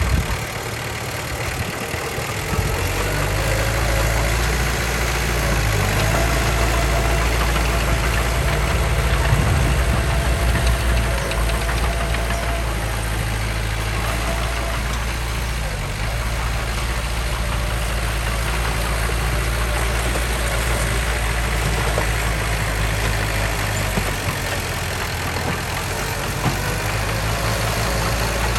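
Diesel engine of heavy earthmoving machinery running steadily, with a low rumble that dips briefly near the start and then holds level.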